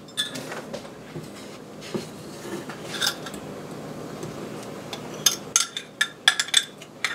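Wooden spoon scraping dry sugar and flour around an enamel saucepan, with a few small knocks. Near the end comes a quick run of sharp clinks against the pan.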